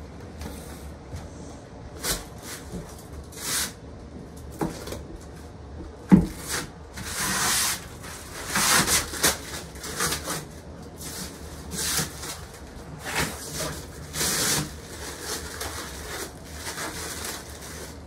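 Bed parts being handled and fitted: irregular rustling and scraping, with one sharp knock about six seconds in.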